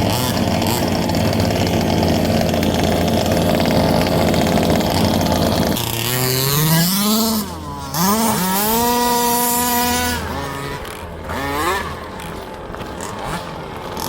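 Small two-stroke petrol engines of 1/5-scale RC buggies running at high revs. About six seconds in, one engine revs up and down, then holds a steady high note before fading away, with brief rev rises after that.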